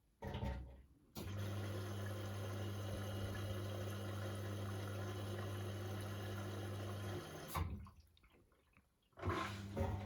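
Beko washing machine drawing in water through its inlet valve at the start of a wash cycle: a steady rush of water with a low hum under it. It cuts off about seven seconds in, and a shorter burst of the same sound comes near the end.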